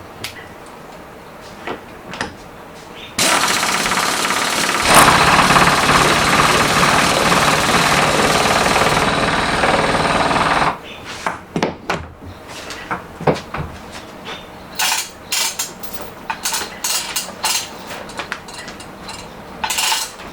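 A power tool starts about three seconds in, runs loudly and steadily for about seven seconds and stops abruptly, followed by a series of sharp knocks and clatter.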